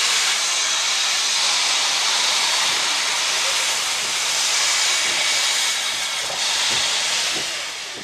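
GWR Large Prairie 2-6-2 tank locomotive 4144 with its cylinder drain cocks open, blowing steam in a loud, steady hiss. The hiss dips briefly about six seconds in and fades near the end.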